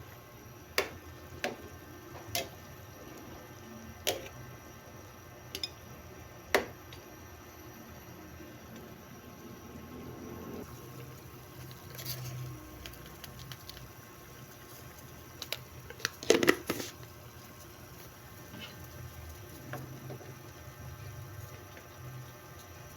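Cooking sounds from a pot of soup: sharp clinks and knocks of a utensil against the pot, spaced a second or two apart early on and then several in quick succession about two-thirds of the way through, over a low steady background with wet, liquid sounds.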